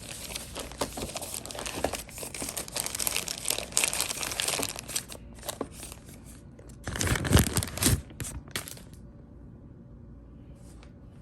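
Packaging crinkling and rustling as a box is opened by hand, with a louder crackling burst about seven seconds in; the rustling stops about nine seconds in.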